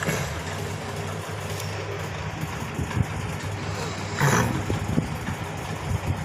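A sleeping pet snoring: a steady low drone, with one louder, breathier snore about four seconds in.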